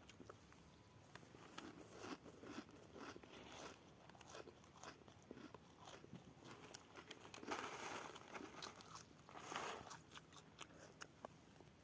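Faint crunching and rustling with scattered light clicks, swelling twice in the second half.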